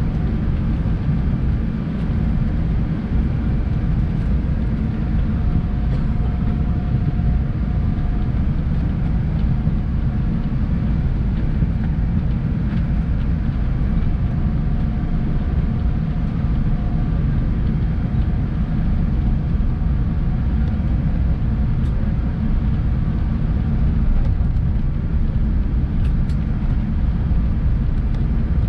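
Steady low rumble inside the cabin of a Boeing 777-300 airliner taxiing slowly, with its engines at low taxi power and a faint steady whine coming and going above the rumble.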